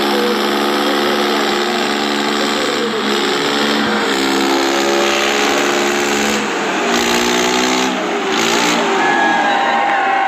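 Tractor diesel engines held at high revs under heavy load in a tug-of-war pull. The engine note sags and recovers every second or two as it strains. Shouting from the crowd comes in near the end.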